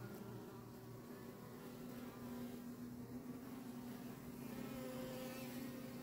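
Many honeybees flying in and out of a hive entrance, making a steady buzzing hum.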